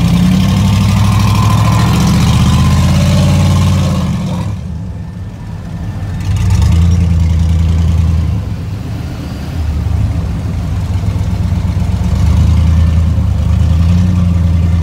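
Engines of big lifted pickup trucks running loud and low as the trucks roll slowly over the sand. The engine sound drops away briefly about four seconds in, then comes back in swells as the throttle rises and falls.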